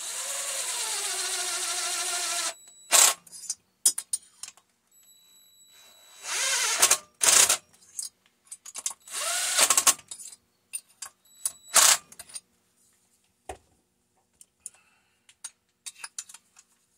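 A small handheld power tool motor running in bursts: first for about two and a half seconds, its pitch dropping and then holding steady, then twice more briefly. Sharp clicks and knocks fall between the runs.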